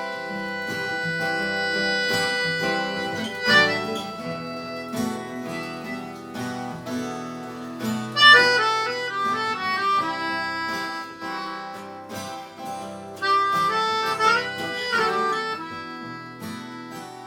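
Instrumental music: held chords of sustained notes, broken by quick runs of notes about 3.5 s in, around 8 to 10 s and again around 13 to 15 s.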